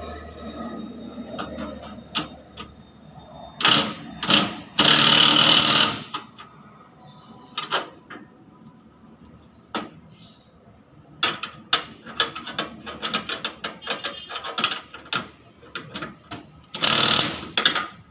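Impact wrench hammering in short bursts on the mounting bolts of an outdoor AC unit: two brief bursts near the four-second mark, then a longer one of about a second, and another near the end. In between come scattered metallic clicks and clatter from the bolts and bracket being handled.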